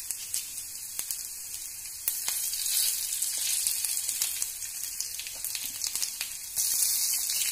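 Mustard seeds and chopped onion sizzling in hot coconut oil in a wok, a steady hiss with scattered crackles. The sizzle grows louder about two seconds in as dried red chillies go into the oil, and again near the end.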